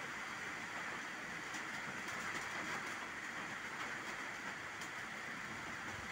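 Steady rain falling on standing water and leafy trees: an even hiss with a few faint drop ticks.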